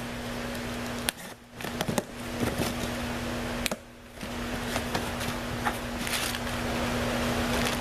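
Packaging of a camera kit being handled and opened: a few sharp clicks and rustles over a steady background hum and hiss.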